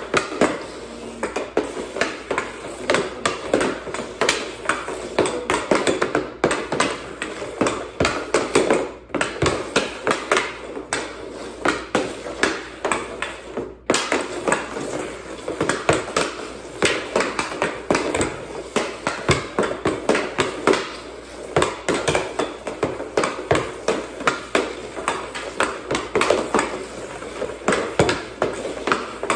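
Hockey stick blade clacking against a stickhandling ball on plastic dryland tiles: a fast, uneven run of several sharp taps a second as the ball is worked side to side, with a couple of brief pauses.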